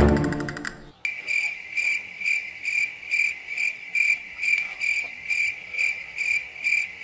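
Cricket chirping, a steady high pulsed chirp a little over twice a second, starting abruptly about a second in: an edited-in sound effect.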